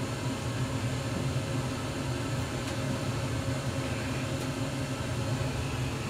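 Lennox Elite Series G60 gas furnace running with its burners lit and draft inducer on, before the circulation blower starts: a steady hum over an even rush.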